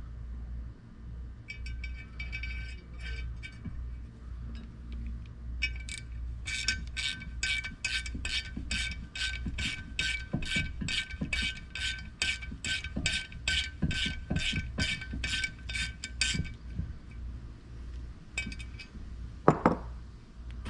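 Ratchet wrench clicking at about two clicks a second for several seconds while brake bolts are tightened, with a few scattered clicks before and a single louder knock near the end.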